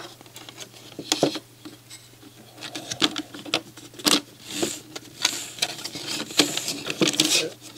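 Plastic CD loader and tray of an NAD C540 CD player being handled and shifted by hand: irregular small clicks, taps and short scrapes of plastic on plastic.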